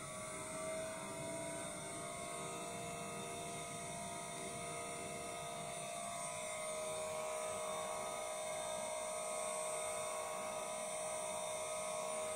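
VFD-driven CNC router spindle running free at about 8,600 to 9,400 rpm, a steady whine of several tones. The pitch steps up slightly about half a second in, and the sound grows a little louder later on, as the spindle speed is raised.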